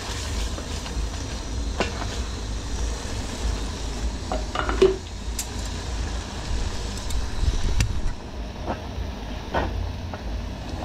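Aluminium cooking pots and lids being handled, giving scattered clinks and knocks over a steady low rumble. The loudest knock comes about five seconds in.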